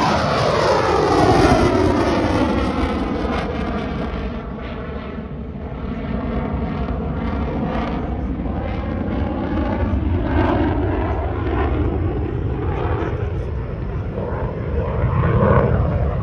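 Fighter jet's engine roar as it climbs away after a low pass: the sound falls in pitch and fades over the first few seconds, then grows louder again near the end.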